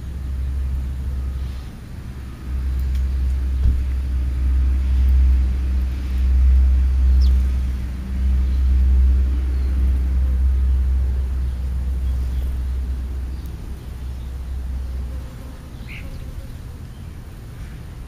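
Low, steady engine rumble like a vehicle running, swelling for several seconds and easing off near the end. A few faint, short high chirps from small birds.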